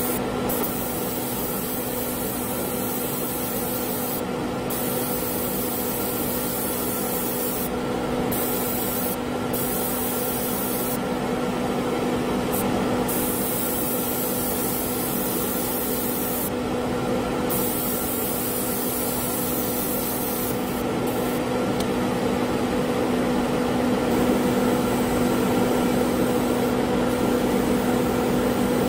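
Airbrush spraying paint with a high hiss that stops and starts several times as the trigger is released and pressed again, over the steady hum of a spray booth's exhaust fan.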